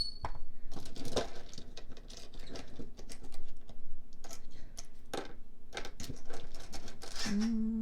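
Tiny plastic miniature toy items clicking and tapping as they are handled and set into a small plastic toy fridge: a run of light, irregular clicks.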